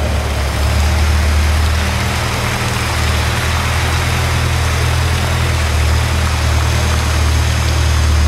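Aircraft tow tractor's engine running steadily with a low hum as it tows a flying boat.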